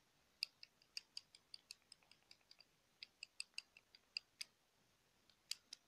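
Light, sharp taps and clicks on pencils, irregular, several a second with short pauses.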